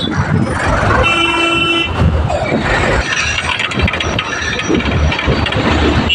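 Busy road traffic with engines running close by. A vehicle horn sounds once for just under a second, about a second in.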